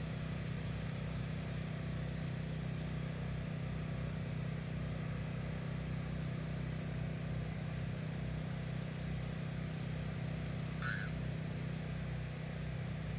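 A steady low mechanical hum like a running motor, unchanging throughout, with a brief high chirp about eleven seconds in.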